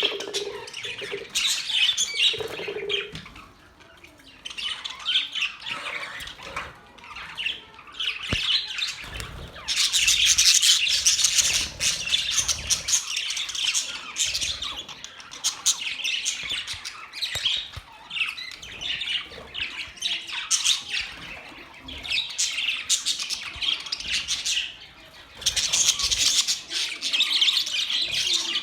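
A group of pet budgerigars chattering and squawking continuously, with dense overlapping chirps. Briefly quieter a few seconds in, louder about a third of the way through and again near the end.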